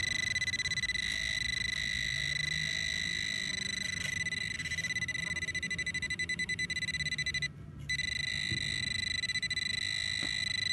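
Handheld metal-detecting pinpointer sounding a continuous high, rapidly pulsing buzz as it is probed in the hole, alerting on a buried metal target (a copper memorial penny). The buzz cuts out briefly about three-quarters of the way through, then resumes.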